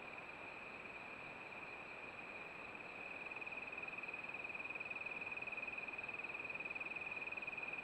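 A steady, high-pitched insect trill, cricket-like and rapidly pulsing, over a faint even hiss. It grows louder about three seconds in.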